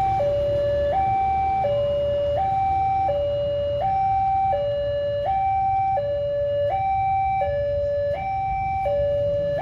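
Railway level crossing warning alarm sounding its two-tone signal, alternating evenly between a higher and a lower tone about every three-quarters of a second, which warns that a train is approaching. A low rumble runs underneath.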